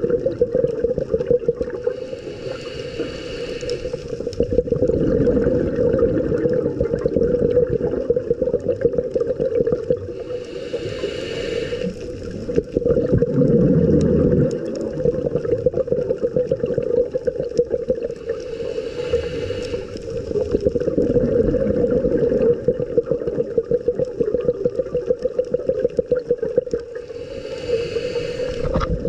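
Scuba diver breathing through a regulator underwater: a hiss of inhalation about every eight seconds, with bubbly exhalation rumbling in between, over a steady underwater hum.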